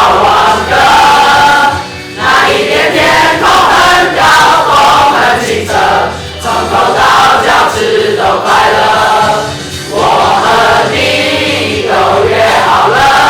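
A group of voices singing together over backing music, in phrases a few seconds long with short breaks between them.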